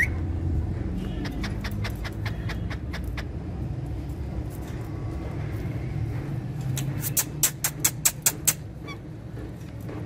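Alexandrine and Indian ringneck parrots on a wire cage: scattered light clicks, then a quick run of about eight sharp clicks about seven seconds in, over a steady low rumble.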